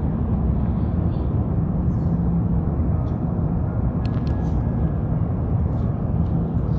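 Steady low rumble of engine and airflow noise inside the cabin of an Airbus A350-900 descending on approach.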